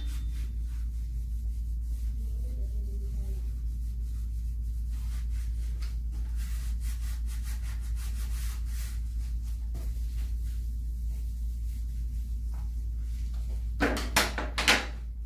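Faint rubbing as a disposable cloth wipes a plastic over-bed table tray, over a steady low hum, then a few sharp knocks near the end as the tray is set back down on the table frame.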